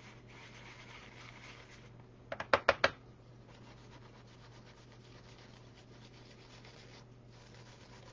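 Paintbrush rubbing in small circles over gold leaf flakes stuck to card, a soft scratchy brushing, with a quick run of about five sharp taps about two and a half seconds in.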